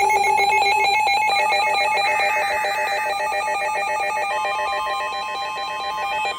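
Emergency Alert System alert tones for a Special Marine Warning: a loud, rapidly pulsing electronic alert made of several pitches, with a steady single-pitched alert tone joining about four seconds in.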